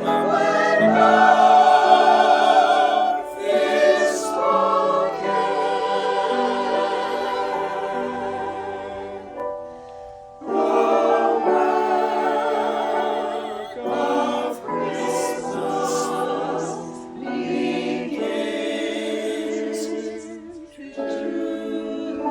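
Choir singing a hymn, in sustained phrases with short breaths between them.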